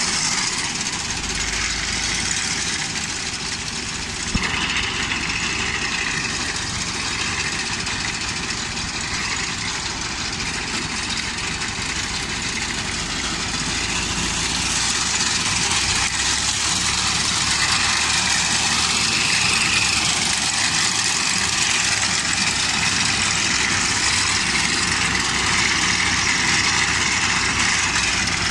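Tractor's diesel engine running steadily while driving a front-mounted reaper that cuts standing wheat. A single sharp knock comes about four seconds in.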